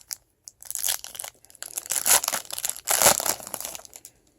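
Foil trading-card pack wrapper being torn open and crinkled by hand, in three crackling stretches about a second, two seconds and three seconds in.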